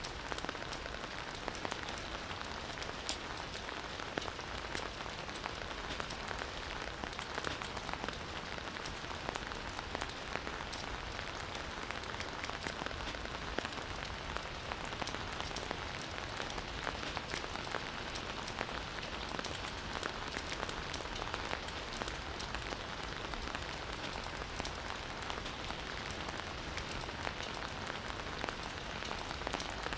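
Campfire burning, with a steady crackle of many small sharp pops over a soft hiss.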